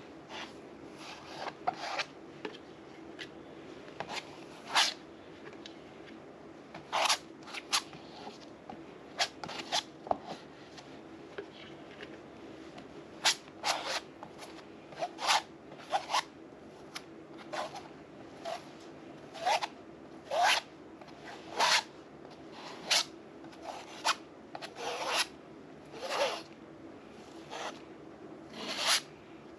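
Palette knife scraping and spreading thick white paste across a stretched canvas: short, irregular scrapes, about one a second, some longer than others.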